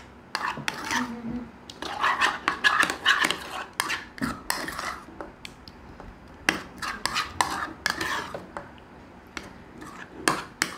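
A metal spoon scraping and clinking against a white bowl as chicken cubes are stirred through a thick cream marinade to coat them. It comes as irregular scrapes and sharp clicks in uneven runs.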